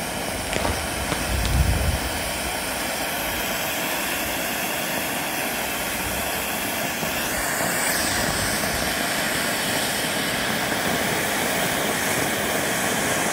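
Ground firework fountain (a 'volcano') spraying sparks with a steady hiss, which grows brighter about seven seconds in.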